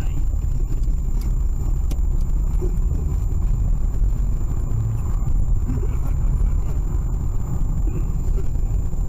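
Steady low rumble of a car driving, heard from inside the cabin: engine and tyre noise on a packed-snow road. A faint constant high-pitched whine sits over it.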